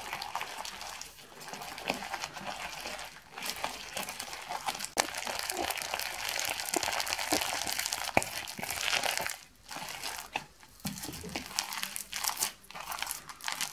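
Hands kneading and squishing a glue slime packed with plastic sequins in a plastic bowl while thickener is worked in. The sound is a continuous, irregular stream of small crinkling clicks and crackles as the sequins rub together in the sticky slime.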